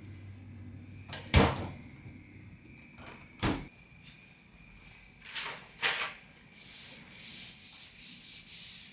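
Household cleaning: two sharp knocks of things being set down or bumped, then several rubbing strokes of a surface being wiped or scrubbed.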